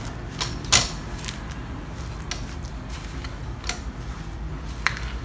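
Metal spoon stirring a crumbly filling in a ceramic bowl, with scattered sharp clinks of the spoon against the bowl, the loudest about a second in.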